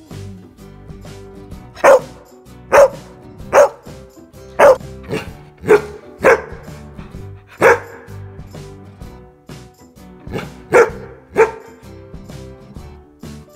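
Golden retriever barking: about eleven short, loud single barks at uneven intervals, with a pause of about two seconds before the last few.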